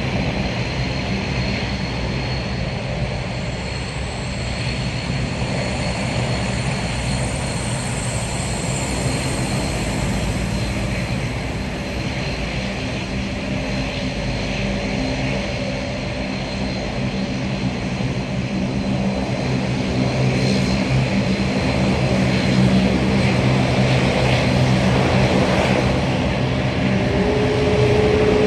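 Airbus A380's four jet engines running at taxi power as the airliner turns onto the runway: a steady high whine over a low rumble. It grows somewhat louder over the last third, with a new tone coming in near the end.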